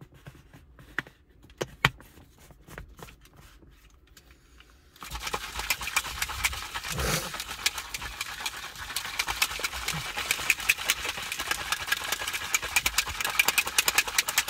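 A few scattered clicks of handling, then about five seconds in a plastic shaker bottle is shaken hard: a fast, dense rattle as a powdered protein drink is mixed.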